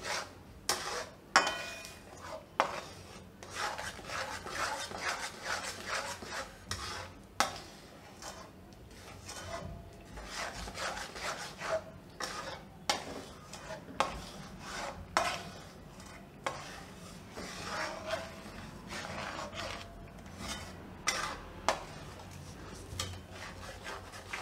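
A spatula stirring and scraping a thick mawa and sugar-syrup mixture around a metal kadai, with irregular rubbing strokes. Now and then there is a sharp click as it knocks the pan.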